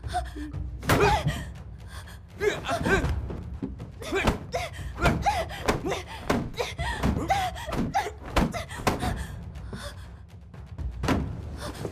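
A struggle: repeated knocks and thumps of bodies and objects against a wooden bed, mixed with short cries, gasps and grunts.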